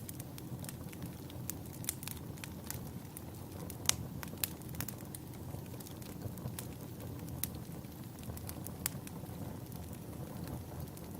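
Log fire burning in a fireplace: a steady low rumble of flames with irregular sharp crackles and pops from the burning wood, two of the sharpest pops about four seconds in.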